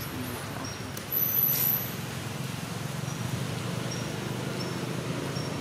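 A steady low motor hum, with short high chirps recurring about once a second and a brief, louder high whistle about a second in.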